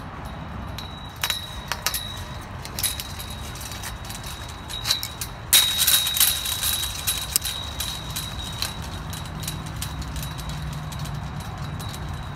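Pliers twisting a wire tie around a chain link fence's galvanized top rail and post: scattered metal clicks and clinks, busiest about five to seven seconds in, over a thin high ring from the metal.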